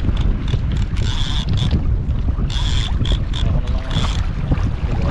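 Wind buffeting the microphone on a small fishing boat at sea: a steady, deep rumble with short bursts of hiss every second or so.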